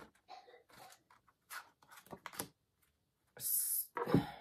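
Gold foil tarot cards being handled: faint scattered clicks and rustles, then about three and a half seconds in a brief hissing slide of cards, followed by a short thump.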